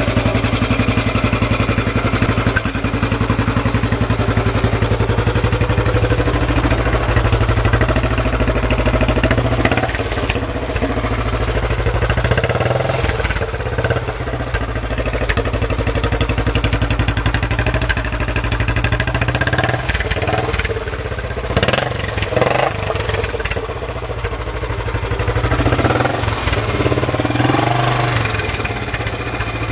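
Royal Enfield Bullet 350's single-cylinder four-stroke engine idling with its steady thump through the exhaust. The engine note rises briefly a few times, about two-thirds of the way in and again near the end.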